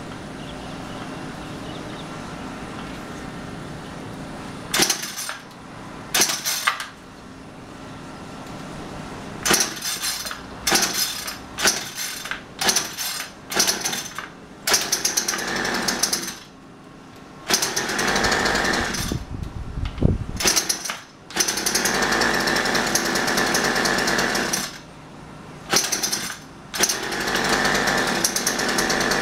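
A gas string trimmer's small engine idles, then is revved repeatedly. First come short, quick blips of the throttle, then longer runs at full speed of a few seconds each, dropping back to idle between them. The engine was hard to start and is running now after a shot of WD-40 into the carburetor.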